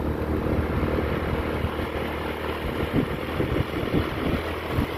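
Small motor scooter running while being ridden, with wind buffeting the microphone in irregular gusts.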